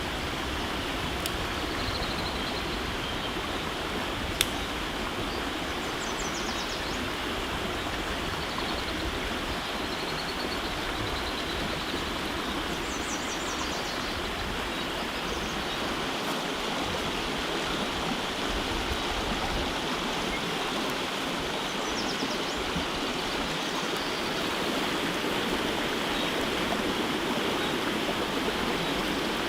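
Food sizzling in a pan, a steady hiss, with one sharp click about four seconds in.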